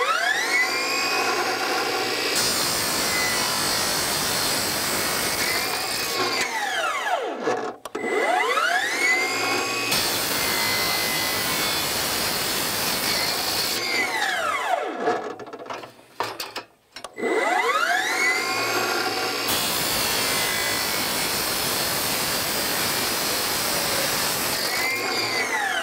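Milwaukee M18 Fuel 14-inch cordless abrasive chop saw making three cuts through steel studs and steel tubing. Each time the motor spins up with a rising whine, the abrasive wheel grinds harshly through the steel for a few seconds, and the saw then winds down with a falling whine in about a second and a half.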